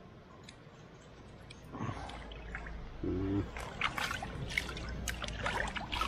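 Water poured over freshly caught trout as they are rinsed, splashing and trickling over the fish and hands; it starts about two seconds in and turns to a busier splashing in the second half.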